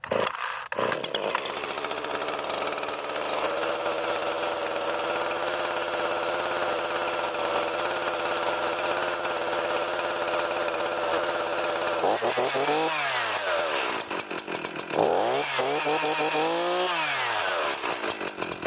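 Echo CS-4910 two-stroke chainsaw catching on the pull with the choke pushed in, then idling steadily. About twelve seconds in it is revved up and straight back down, then revved again, held high for a couple of seconds and let back down to idle.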